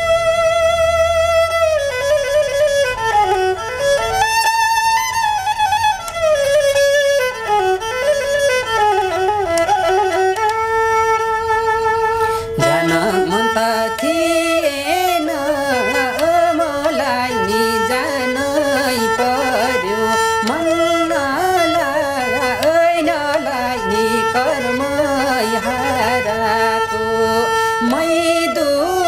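Nepali sarangi, the small four-string bowed folk fiddle, playing a melodic folk tune on its own. About twelve seconds in, a man's voice joins in with the tune alongside the sarangi.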